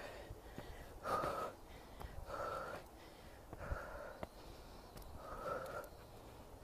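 A woman breathing hard, out of breath from climbing a steep hill: four heavy breaths about a second and a half apart.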